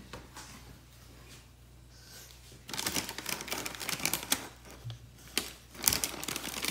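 Cookie packaging being handled: rustling and crinkling in quick clusters of small clicks that start about two and a half seconds in, after a quiet stretch, with a couple of shorter bursts near the end.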